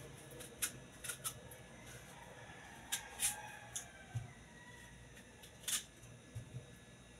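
Kitchen knife paring the thick rind off a hand-held piece of melon: several short crisp cutting and scraping strokes, unevenly spaced.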